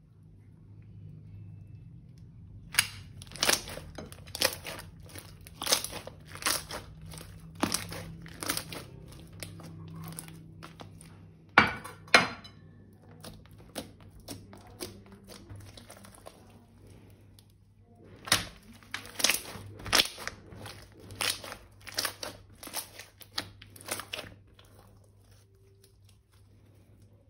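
Crunchy slime and plastic piping bags being squeezed and worked by hand, crackling and crinkling in close clusters, with two sharp snaps near the middle.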